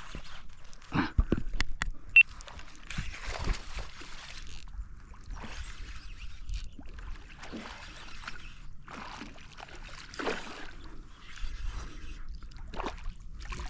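Intermittent water sloshing and splashing around a small fishing boat, in short uneven bursts, with a few sharp clicks between one and two seconds in.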